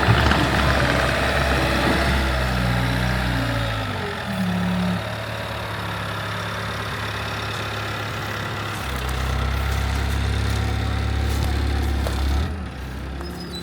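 Bobcat T76 compact track loader's diesel engine running, its engine speed stepping down about four seconds in, rising again around nine seconds, then dropping off sharply near the end.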